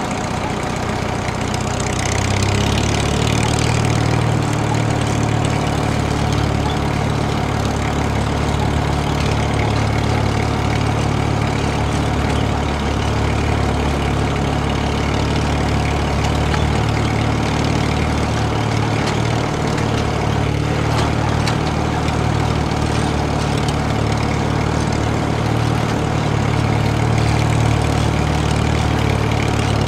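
Steady low engine drone, like a diesel tractor working under load, getting louder about two seconds in.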